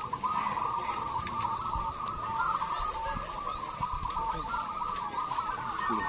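Many caged zebra doves (perkutut) cooing at once, a dense, continuous chorus of overlapping calls.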